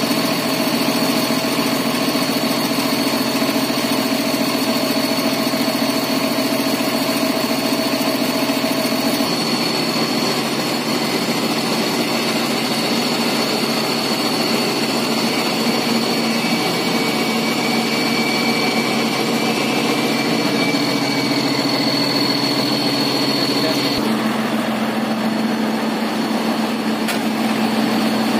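Heavy diesel engines of a concrete mixer truck and a mobile crane idling steadily, with a thin steady whine over them; the sound changes abruptly about a third of the way in and again near the end.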